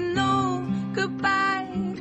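Background song: a sung vocal over acoustic guitar.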